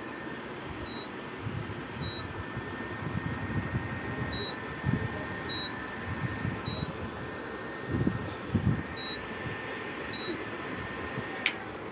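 Opened-up induction cooktop switched on: its cooling fan running with a steady hum and a thin, steady high-pitched whine. A few dull low bumps sound about two-thirds of the way through. Near the end a sharp click comes and the whine cuts off.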